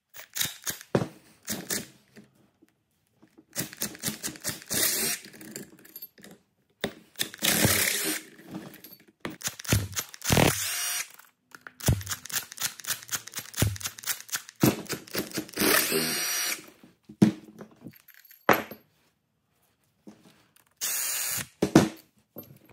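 Milwaukee cordless impact driver running in a series of short bursts with pauses between, backing long screws out of an aluminium ABS pump housing.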